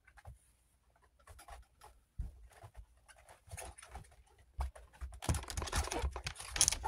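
A fleece cage liner being spread and smoothed out by hand, with soft scattered rustles and scratches and a denser, louder stretch of rustling near the end.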